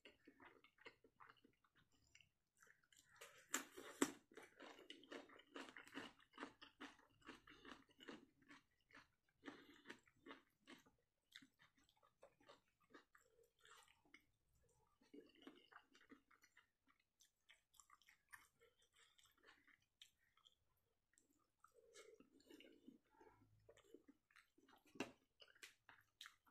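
Quiet close-up chewing of fish curry and rice, with wet smacking and clicking mouth sounds in quick succession. They are busiest and loudest for several seconds from about three seconds in, then come more sparsely, with one sharp click near the end.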